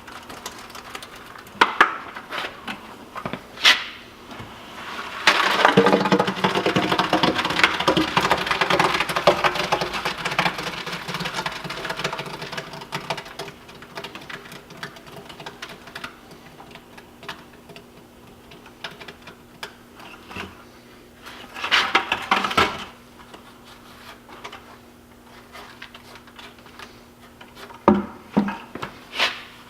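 Wet concrete being worked in a bucket and filled into the workbench's hollow posts: a long stretch of gritty scraping starting about five seconds in and lasting around eight seconds, with scattered knocks and a shorter burst of scraping later on.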